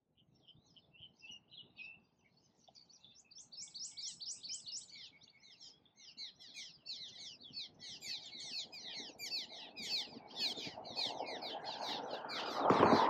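Cliff swallows twittering and chirping, sparse at first, then a dense, overlapping chatter of high notes that grows louder as the flock gathers. About three seconds in comes a short run of quick, evenly repeated high notes, and near the end a louder rushing noise rises beneath the chirps.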